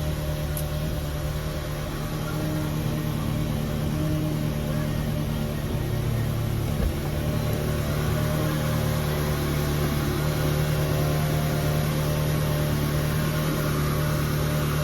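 A car engine running steadily at idle, with a brief knock about seven seconds in.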